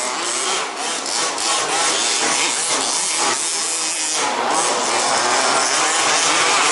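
Several 1/5-scale petrol RC buggies' small two-stroke engines revving up and down together, their pitches rising and falling and overlapping as they race around the track.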